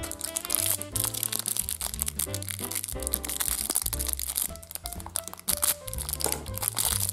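Background music with a steady bass line, over the crinkling and crackling of packaging wrapper being handled.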